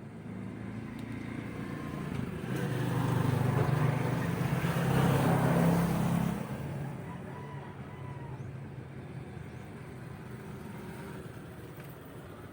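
A motor vehicle engine passing by. It grows louder over a few seconds, is loudest around the middle, then falls away to a lower hum.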